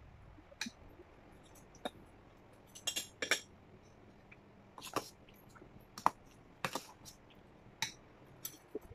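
Metal spoon clinking and scraping against a stainless steel bowl in irregular, sharp clicks.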